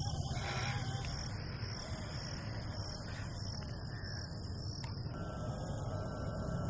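Crickets chirring in a steady high pulsing chorus, over a constant low rumble.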